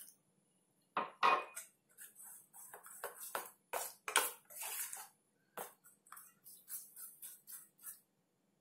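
Steel spoon beating besan (gram flour) batter in a stainless steel bowl: quick, irregular clinks and scrapes of metal on the bowl, loudest about a second in.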